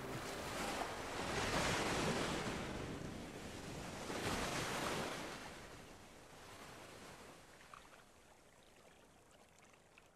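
Ocean surf sound, waves washing in as a few swells of hiss, then fading away over the second half.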